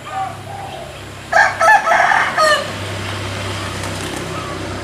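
A rooster crowing once, a loud call beginning about a second and a half in and lasting just over a second, ending on a falling note.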